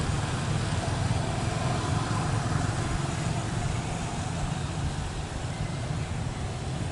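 Wind rumbling on the microphone: a steady low buffeting noise with an even hiss above it.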